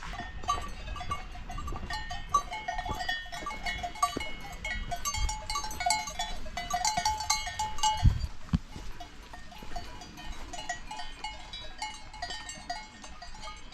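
Cowbells on grazing cows clanking irregularly, several bells at different pitches ringing over one another, with a dull thump about eight seconds in.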